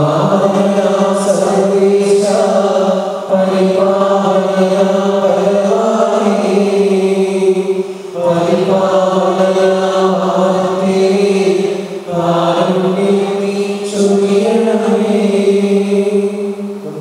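A slow liturgical chant sung during Mass, long held notes in phrases of about four seconds.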